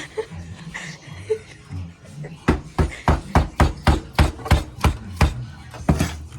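Knife chopping on a cutting board: about a dozen quick, even strokes, roughly three a second, starting a couple of seconds in.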